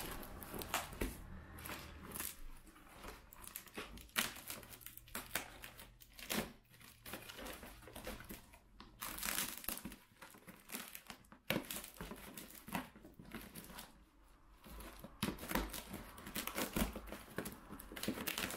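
Hands unpacking a cardboard shipping box: packing wrap crinkling and rustling on and off, with some tearing.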